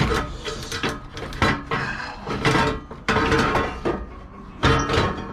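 Repeated metal clanks and knocks of a car's exhaust header being worked loose and lowered out from under the car, with the loudest knocks at the start and about four and a half seconds in.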